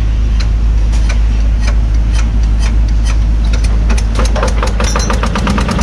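Yanmar single-cylinder diesel engine of about 11 hp being hand-cranked into life: sharp knocks come about twice a second at first, then quicken into a fast, even diesel knock in the last couple of seconds as it catches and runs.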